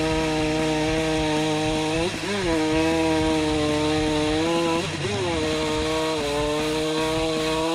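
Poulan two-stroke chainsaw cutting wood under load. The engine note sags steadily in the cut and briefly revs up about every two and a half seconds. The run is a test of a chain sharpened with the wrong grinding stone, which cuts better than feared.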